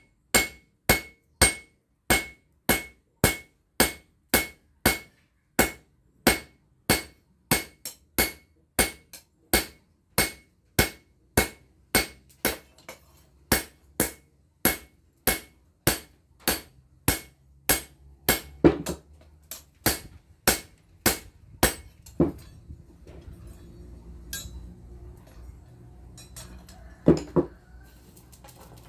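Hand hammer striking a red-hot steel blade blank, forged from a bearing, on a steel anvil: an even run of blows, a little under two a second, each with a bright metallic ring. The hammering stops about 22 seconds in, leaving a low steady hum and a couple of single knocks.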